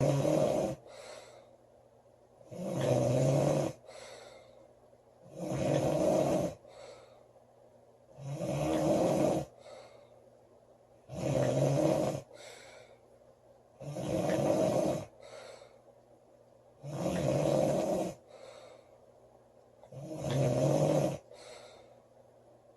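A woman snoring loudly in a steady rhythm, one long rasping snore about every three seconds, each followed by a short, fainter breath.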